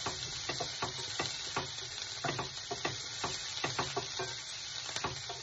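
Chopped onions sizzling in butter in a stainless steel pan. A wooden spatula stirs them, scraping and knocking against the pan about three times a second. The onions are being fried until pink.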